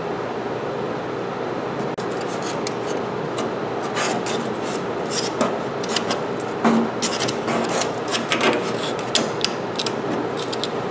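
Irregular scraping and rubbing, with small clicks and knocks, as epoxy is worked down under the oak braces against the desk's steel sheet. It starts about two seconds in and runs over a steady background hum.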